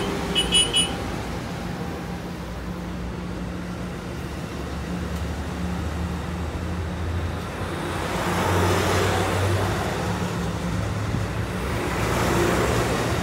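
Amtrak passenger train cars rolling slowly past a station platform: a steady low hum and rumble that swells twice with a rushing noise. A few short high beeps sound about half a second in.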